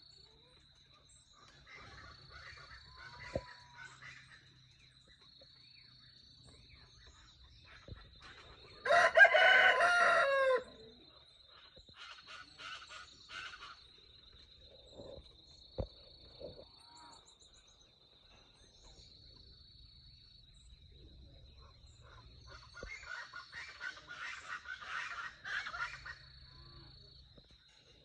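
A rooster crows once, loudly, about nine seconds in, the crow falling in pitch at its end. Under it runs a steady high-pitched trill, with scattered quieter bird calls before and after.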